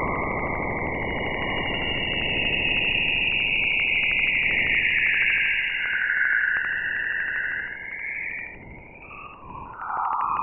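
Eerie 'space sound' clip: a hiss like radio static, with high whistling tones that drift slowly up and down in pitch over a fast, even crackle. It fades somewhat for a couple of seconds near the end, then comes back up.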